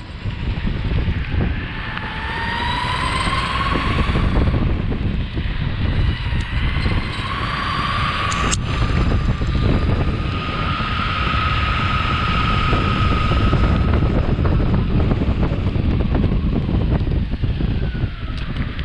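Meepo Hurricane electric longboard riding at speed: wind buffeting the microphone over wheel rumble on pavement. The motors' whine rises in pitch twice as the board speeds up.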